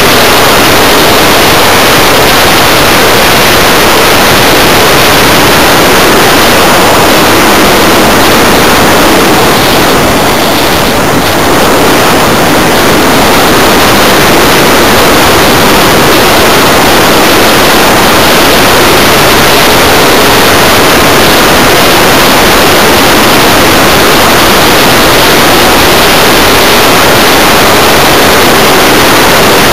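Loud, steady rush of air streaming over the onboard camera's microphone of a 1/6-scale BAC IV model glider in flight, easing slightly for a moment about ten seconds in.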